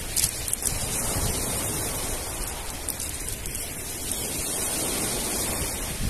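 Black Sea waves washing onto a pebble beach: a steady rush of surf that swells slightly as each wave breaks.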